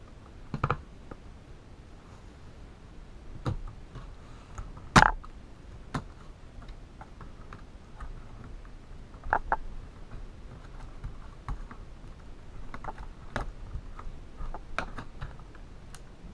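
Plastic clicks and taps from a Dell Latitude D620 laptop's keyboard and case as the keyboard is worked loose and lifted by hand. The clicks come irregularly, with a few sharper snaps, the loudest about five seconds in.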